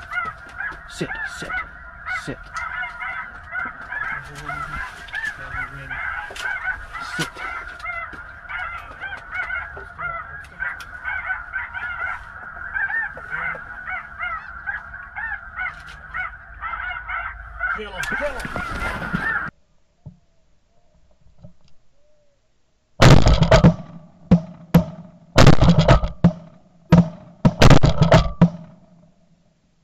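Snow geese calling in a dense, continuous chorus that cuts off suddenly about two-thirds of the way through. After a few seconds of near quiet, a rapid string of six or seven loud shotgun shots, about a second apart.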